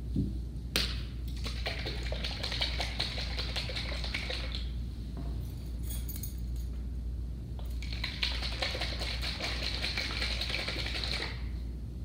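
Craft painting work at a table: paint bottles, paint cups and a brush being handled and worked. It comes as two stretches of rapid scratchy clicking, each about three and a half seconds, with a pause between them.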